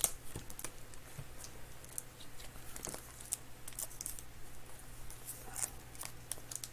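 Faint scattered clicks and brief rustles of light handling, over a low steady hum.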